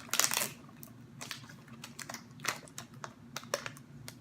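Plastic snack packaging being handled and opened: a loud rustle just after the start, then scattered small clicks and crinkles.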